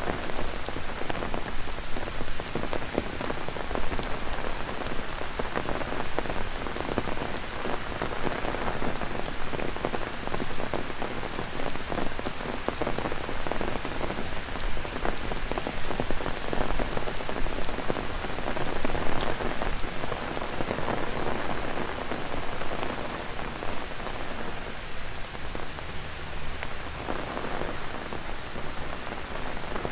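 Heavy rain drumming on an umbrella in a dense, steady patter of drops, with a continuous high-pitched drone of cicadas behind it.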